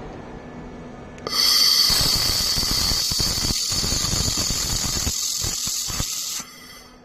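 Air-cooled laser welding machine humming steadily, then about a second in a loud hiss with a high whine starts as it fires, running about five seconds before cutting off suddenly.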